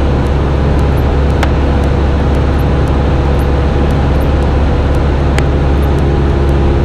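Cessna 172's piston engine and propeller droning steadily in flight, heard inside the cabin. Two faint clicks come through, about a second and a half in and again near the end.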